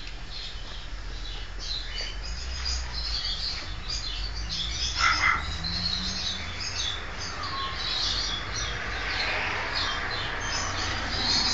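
Small birds chirping continually in quick, short, high-pitched notes, with one louder call about five seconds in, over a low steady rumble.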